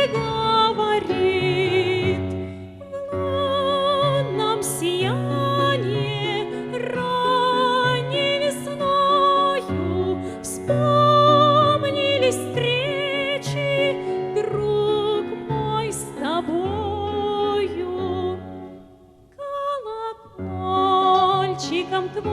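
A Russian romance sung in an operatic style with strong vibrato over an instrumental accompaniment. The music drops away briefly about nineteen seconds in.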